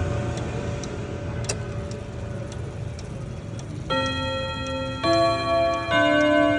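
French ODO 54 chiming clock with eight rods: the movement ticks about twice a second. About four seconds in, the chime begins, its hammers striking the rods one note roughly every second, each note ringing on under the next.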